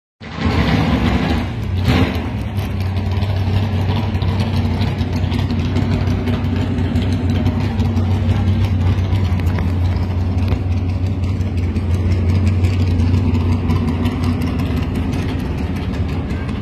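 GTO race car's engine idling steadily, with a short sharp sound about two seconds in.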